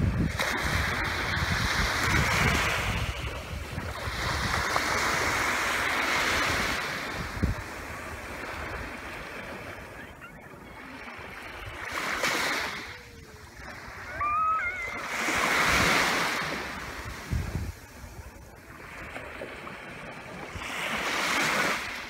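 Small waves washing onto a sandy beach, coming in repeated swells that rise and fall over a few seconds each. Wind buffets the microphone during the first several seconds, and about two-thirds of the way through a brief high gliding sound rises and falls.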